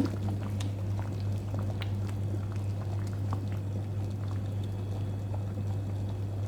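Thick vegetable soup with lentils and macaroni bubbling at a simmer in a pot, with scattered small pops over a steady low hum.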